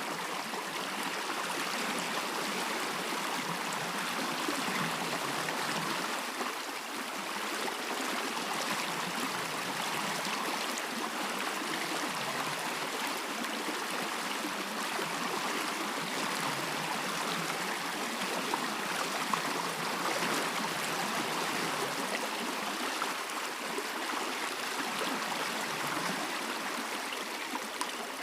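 A stream flowing steadily over stones, a continuous babbling and trickling rush of water.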